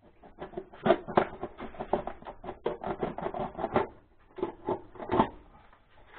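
Hand tool scraping and clicking against a small plastic part in quick, irregular strokes, with a short pause about four seconds in.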